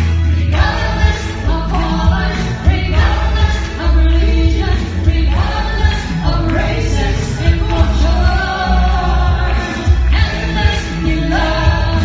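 Live pop song: singers into handheld microphones, with a bass-heavy musical accompaniment played through the stage speakers.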